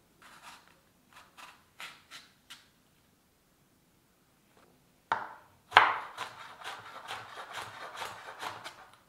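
A kitchen knife cutting long green brinjal (eggplant) on a wooden chopping board: a sharp strike about six seconds in, then a quick run of cuts and scrapes. Before that, a few soft rubbing knocks as the brinjals are handled in a steel plate, then a short pause.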